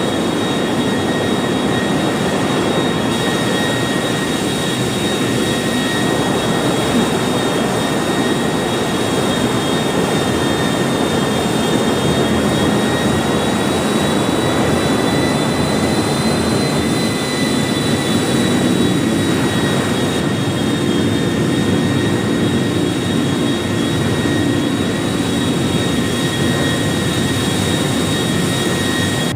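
Aircraft engines running steadily: a constant roar with a high whine held at two pitches.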